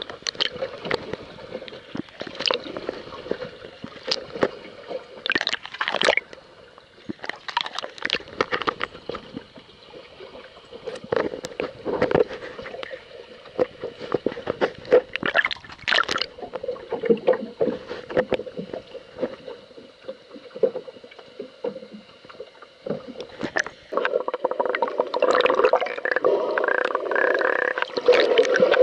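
Underwater sound picked up by the camera: irregular sharp clicks and knocks over a steady low hum. About five seconds before the end it turns into a louder, denser rushing noise.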